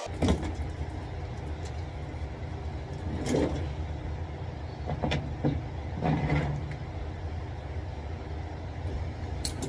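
Steady low hum of an electric fan running, with a few short rustles and knocks from handling parts about three, five and six seconds in.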